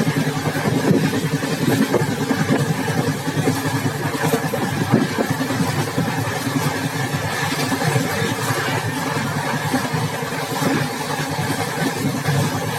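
Express passenger train running at speed, heard at its open exit door: a steady rumble of wheels on rails mixed with rushing air, with a few faint knocks.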